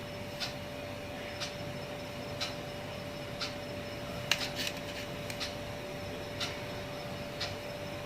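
Clock ticking about once a second over a steady faint hum, with a couple of extra small clicks about four and a half seconds in.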